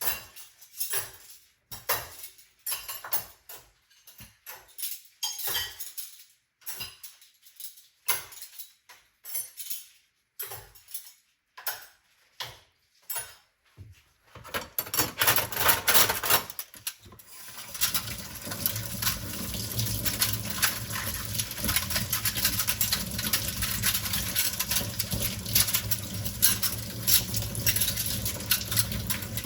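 Dishes and cutlery clinking and knocking in a sink, in separate short knocks. A little over halfway through, the tap is turned on and water runs steadily into the sink.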